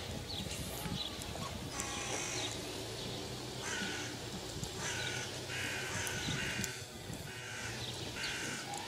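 A bird calling in short, harsh caws, about seven calls spaced irregularly over several seconds.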